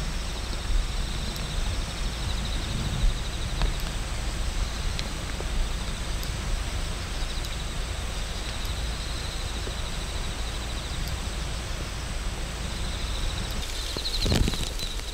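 Outdoor background noise: a steady low rumble and hiss, with a faint high chirping that comes and goes every couple of seconds, and a brief louder swell near the end.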